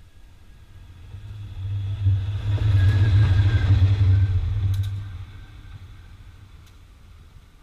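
Diesel locomotive passing close by on the track: a deep engine and wheel rumble swells over about two seconds, peaks as it goes past, then fades as it moves away.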